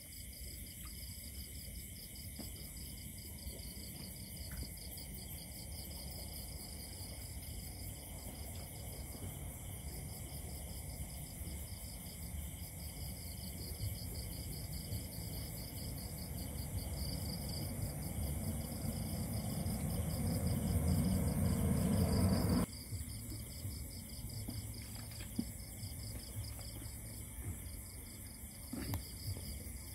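Night chorus of insects: a fast pulsing trill with steady high ringing tones above it. A low rumble builds over several seconds and stops abruptly about two-thirds of the way through.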